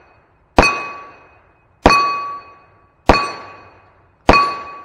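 Four revolver shots from a Freedom Arms Model 83 firing light 45 Colt handloads, about a second and a quarter apart. Each shot is followed by the ring of the steel plate target being hit, fading away before the next.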